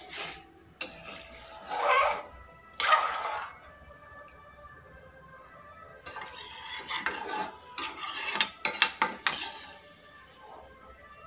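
Metal slotted skimmer stirring soupy vermicelli in a large metal pan, scraping and knocking against the pan's sides, with the liquid swishing. A few separate scrapes come first, then a run of quick clinks in the second half.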